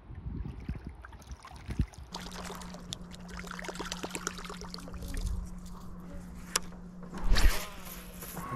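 Electric bow-mounted trolling motor humming steadily from about two seconds in, with scattered light clicks, and a loud rushing burst about seven seconds in.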